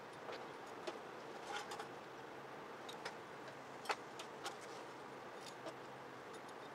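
Scattered light clicks and knocks of tools and parts being handled while a Kawasaki KLR650's front forks and handlebars are fitted, over a steady low hum; the sharpest click comes about four seconds in.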